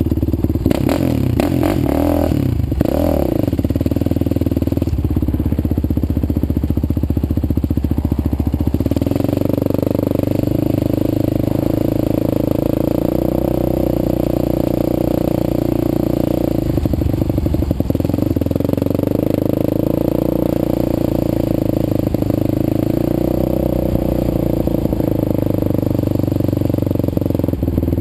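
Sport ATV engine running at a low, steady speed, heard close up from the rider's onboard camera, with a few quick blips of the throttle in the first few seconds.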